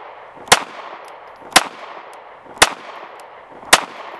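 Ruger LCP Max .380 ACP pocket pistol firing four shots, evenly paced about one a second, with faint clinks between the shots.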